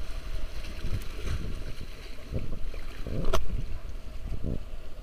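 Wind buffeting the camcorder microphone as a steady low rumble, with a sharp knock about three seconds in.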